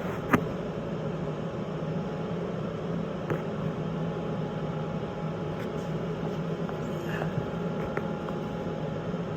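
A steady machine hum with a low drone, broken by a few light clicks. One sharper click or knock comes about a third of a second in.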